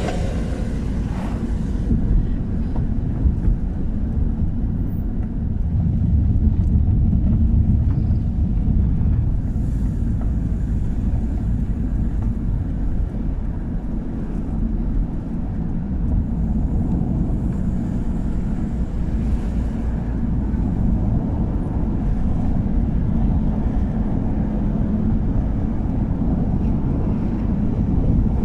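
Car driving on the road, heard from inside the cabin: a steady low engine and tyre rumble.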